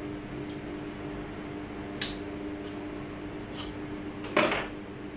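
Kitchenware being handled at a kitchen counter: a light knock about two seconds in, then a louder clatter near the end, over a steady low hum.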